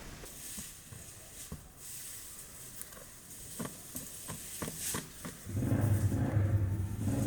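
Scattered light clicks and crackles, then about five and a half seconds in a louder, low, steady motor hum starts.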